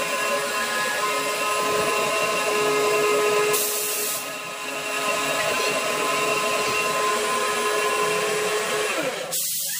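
Electric mixer-grinder motor running steadily with a constant whine, grinding soaked rice and dal into dosa batter. A short hiss breaks in about three and a half seconds in, and the motor stops near the end.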